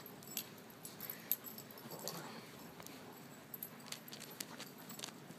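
Large dogs playing in snow, heard faintly: scattered light clicks and rustling, with a faint dog noise about two seconds in.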